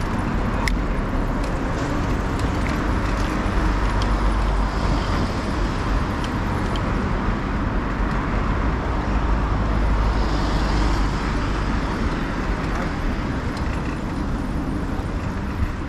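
Steady road traffic on a city street: cars passing with a constant low rumble.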